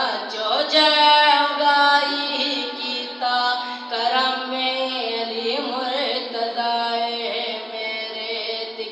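A man's voice chanting devotional verse in a sung, melodic style through a microphone, holding long notes of a second or more and sliding between pitches.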